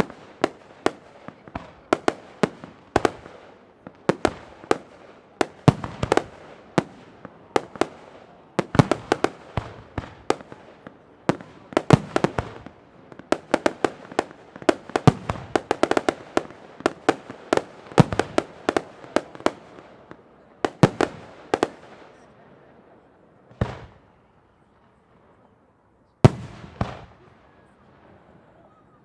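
Professional fireworks display: dense salvos of sharp shell bursts, many in quick succession, with crackle between them. The bangs stop for about two seconds near the end, then start again.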